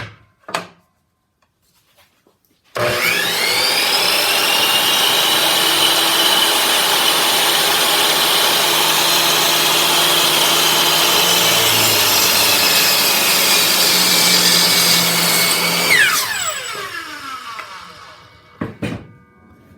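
An electric saw starts about three seconds in and runs steadily while cutting wood, then is switched off near the end, its blade spinning down with a falling whine. A couple of knocks follow.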